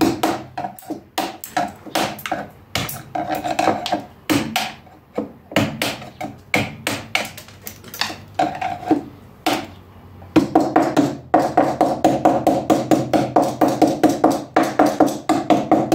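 A hammer tapping a screwdriver used as a chisel, chipping excess cured granite-composite material off the drain opening of a sink in its fiberglass mold. The taps are irregular at first, then from about ten seconds in they come in a fast even run of about five a second, each with a ringing tone.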